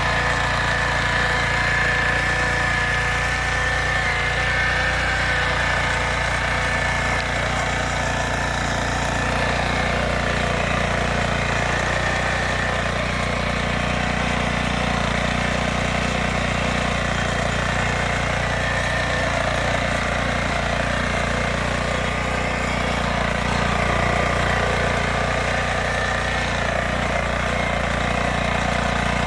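Lombardini engine of a Yağmur YET 320 rotary tiller running at a steady speed, with no change in pitch or level.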